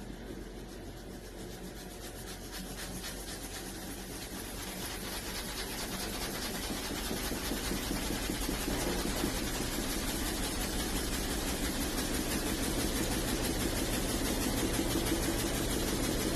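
Washing machine drum spinning up: a steady mechanical hum that grows gradually louder.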